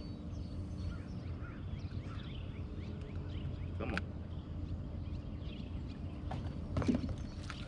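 Small birds chirping and calling repeatedly over a low, steady hum.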